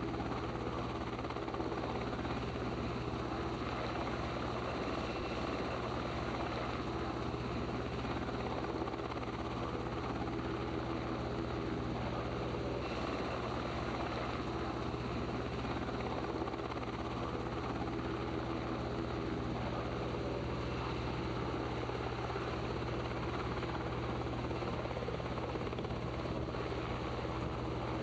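Helicopter in flight, heard from on board: a steady, unchanging drone of rotor and engine with a constant low hum.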